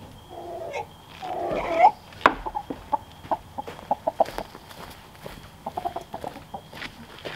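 Chickens settled on their roost in a mobile coop, giving a couple of drawn-out low calls in the first two seconds, the second ending on a rising note. After that comes a run of light clicks and taps.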